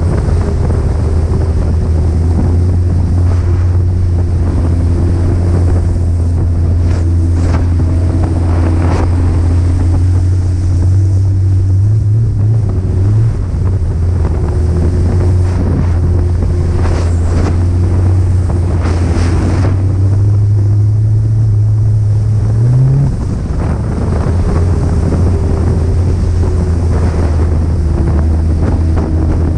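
Snowmobile engine running steadily at cruising speed, its note rising briefly a couple of times, with wind buffeting the microphone and a few short knocks.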